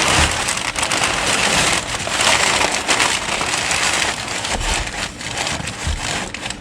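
Kraft paper crinkling and rustling without a break as the excess wrapping paper is pushed down into a cardboard box as void fill.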